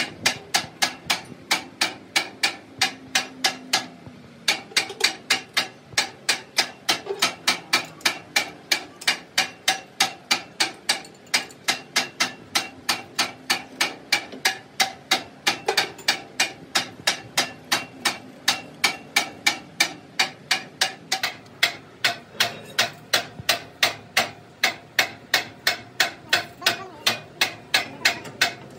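Hammer striking metal in a steady rhythm, about three blows a second, each blow ringing. There is a brief break about four seconds in.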